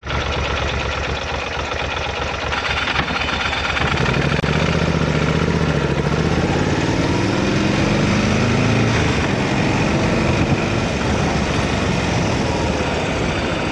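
Motorcycle engine running as the bike rides along, under a steady rush of wind and road noise; from about four seconds in the engine note climbs and falls as it pulls through the revs.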